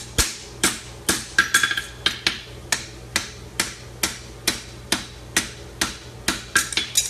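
Farrier's hammer striking a hot horseshoe on the anvil in steady blows about two a second, some with a short metallic ring from the anvil, pulling a bend into the shoe.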